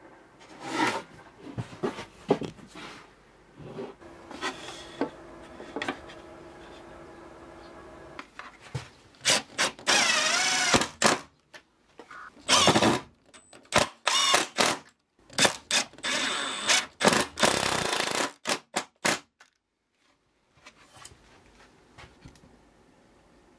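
Power drill-driver driving screws into a wooden strip in several short runs, the motor's whine wavering in pitch as it loads up. Clicks and knocks of parts being handled come between the runs.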